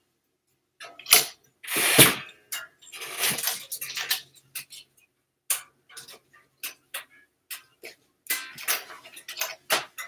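Irregular clicks, knocks and rattles of a lamp on a light stand being tilted and adjusted by hand.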